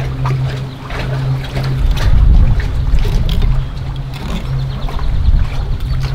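Wind buffeting the microphone, a heavy low rumble that swells about two seconds in and stays gusty.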